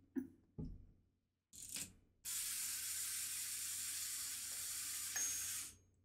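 Wind-up spring mechanism of a small plastic toy microwave whirring steadily for about three and a half seconds as its turntable spins, then stopping abruptly as the spring runs down. A soft knock and a short rustle come before it.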